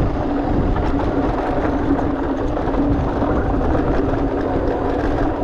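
Electric mountain bike rolling over a rough, bumpy dirt trail: a steady rush of tyre, rattle and wind noise with a constant hum running under it.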